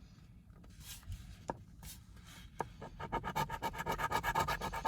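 Coin scratching the coating off a scratch-off lottery ticket: faint at first, then quick, even strokes from about three seconds in.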